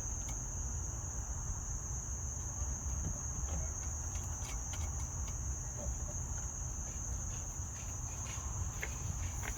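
Crickets chirping steadily, with a low rumble and a few faint scattered clicks as a mounting bolt is threaded on by hand.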